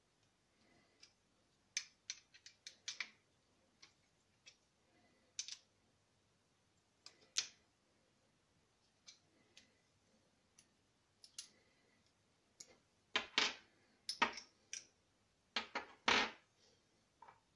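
Small metal screwdriver bits, sockets and an extension clicking and clinking as they are fitted onto a screwdriver shaft and set down on a table, in irregular sharp clicks with a denser, louder run of them near the end.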